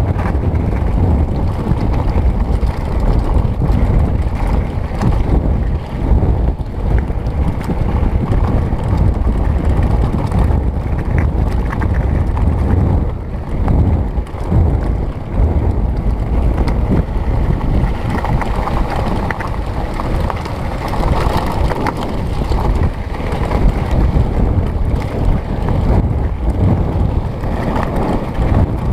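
Mountain bike descending a loose gravel track at speed: wind buffets the microphone over the rumble of knobby tyres on stones. Many small knocks and rattles come from the bike over bumps.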